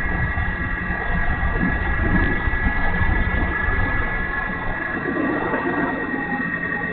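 E-flite Timber RC plane's electric motor and propeller giving a steady high whine in flight, over a low rumble.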